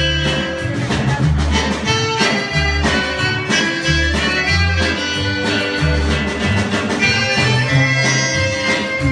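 A band playing a piece of Sonoran regional music, with a bass line stepping on an even beat under sustained melody notes.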